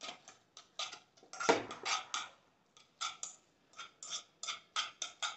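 Chopsticks clicking and scraping against a non-stick pan while tossing cooked instant noodles in sauce: a rapid, uneven run of short taps, about two a second.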